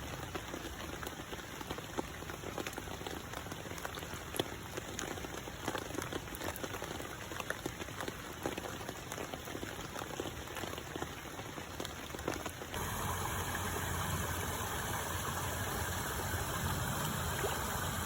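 Rain falling on a koi pond's water surface: a steady hiss dotted with many small, separate drop impacts. About two-thirds of the way through it switches abruptly to a louder, steadier rushing noise with fewer distinct drops.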